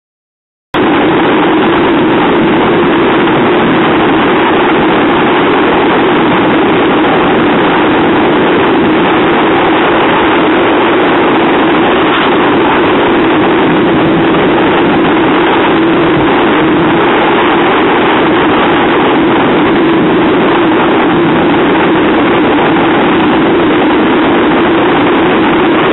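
An Atlantic 85 lifeboat's outboard engines run steadily under the load of a tow, mixed with a loud, even rush of wind and sea. It starts abruptly about a second in and holds a constant level.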